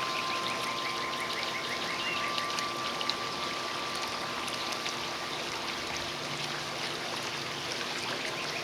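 Steady outdoor background hiss, with a quick run of short high chirps, about five a second, during the first three seconds.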